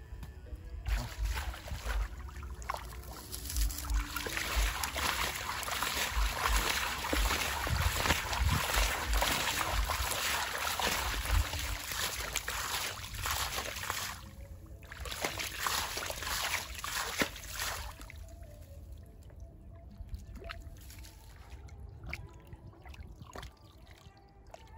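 Water trickling and sloshing with a dense run of small splashes and clicks, which break off briefly about 14 seconds in and die down to a faint trickle after about 18 seconds.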